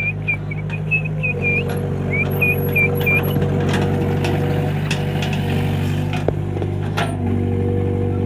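Excavator's diesel engine running steadily, its note shifting about a second in and again near the end as the load changes. A quick run of short high squeaks over the first three seconds, and a couple of sharp knocks later on.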